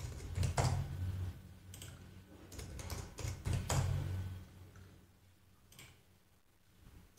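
Computer keyboard keys tapped in short scattered strokes, a few separate clicks a second or so apart, over a low hum that fades out about halfway through.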